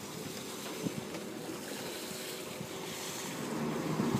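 Sailing yacht's inboard diesel engine running at low revs as it manoeuvres into a slip, with propeller wash churning the water. The sound is steady and comes with wind noise on the microphone.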